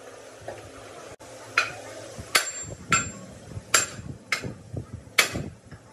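A hammer striking metal about six times at an uneven pace, roughly one blow every half to one second, each blow ringing briefly.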